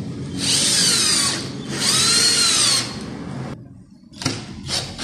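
Cordless drill-driver driving a 4x50 screw into melamine board in two bursts of about a second each, the motor's pitch rising and falling under load. The screw goes in flush without difficulty. A few sharp clicks follow near the end.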